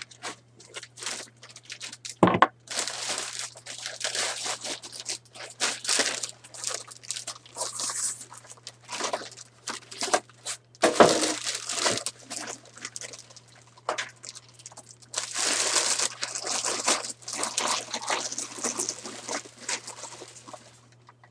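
Plastic wrapping crinkling and rustling in irregular bursts as it is pulled off a PC case, with a few sharp knocks along the way. A low steady hum sits underneath.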